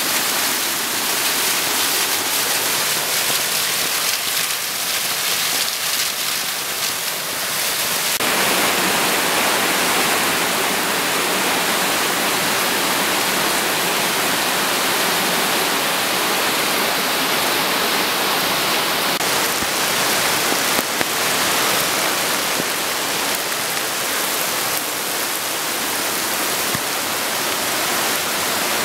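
Muddy floodwater from an overflowing arroyo rushing down a street and surging around parked cars' wheels: a steady rush of water that grows fuller about eight seconds in.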